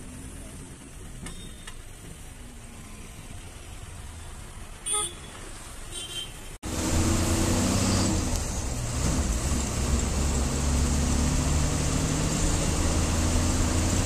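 Engine and road noise from inside a moving bus. A vehicle horn toots briefly about five seconds in. After an abrupt cut a second or so later, the engine drone turns much louder and steady, with a deep hum.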